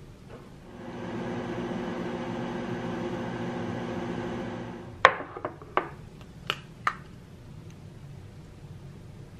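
Microwave oven running with a steady hum, which stops about four and a half seconds in. A sharp clunk follows, then a few lighter clicks and knocks.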